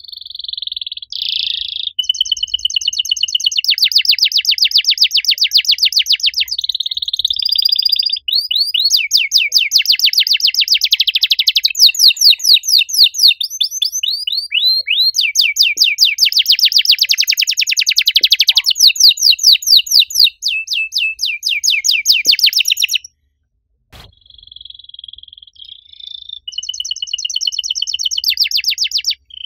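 Domestic canary singing a loud, long song of fast rolling trills and rapid repeated notes, with a brief break a little over twenty seconds in before the song picks up again.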